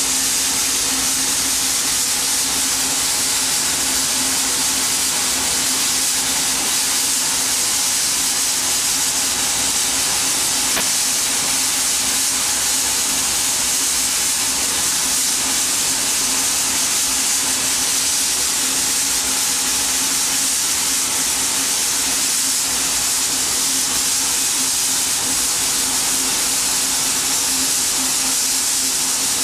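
Steam locomotive Wee Georgie Wood standing in steam, hissing steadily and unbroken, with a faint steady hum underneath.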